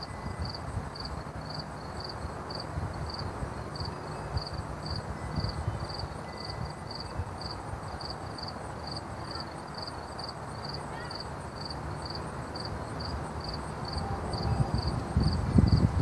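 A short high chirp repeating evenly about twice a second, like a cricket, over a low rumbling hum. Heavy bass swells in near the end.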